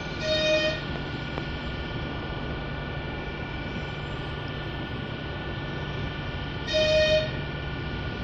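Steady hum of a moving passenger train heard from on board, with two short toots of the train's horn, one just after the start and another about seven seconds in.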